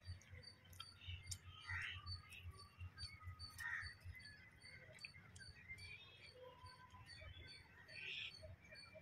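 Faint mouth sounds of a person eating, over a steady rapid high chirping, about three chirps a second, and a few bird calls.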